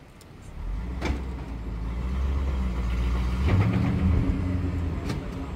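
A four-wheel-drive vehicle's engine revving up under load as it pulls on a tow strap, building from about a second in to its loudest near the middle. A sharp knock comes about a second in and another near the end.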